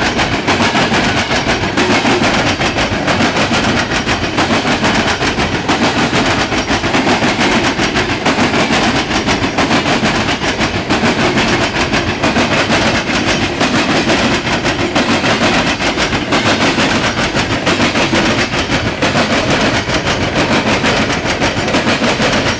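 Norfolk Southern coal train's open-top hopper cars rolling past close by, their steel wheels clattering rapidly and steadily on the rails.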